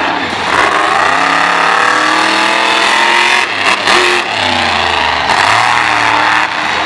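Monster truck engine revving hard, its pitch climbing and dropping several times as the throttle is worked.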